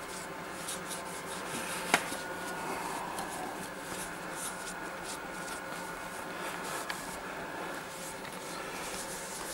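Cloth rag rubbing over a motorcycle's chrome handlebar and headlamp housing in repeated short wiping strokes, with one sharp click about two seconds in and a fainter one near seven seconds.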